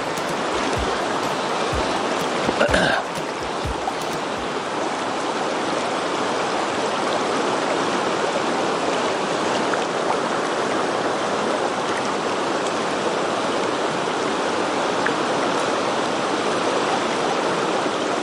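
Fast, shallow river rapids rushing steadily over rocks, a constant loud water noise, with one short louder burst of sound about three seconds in.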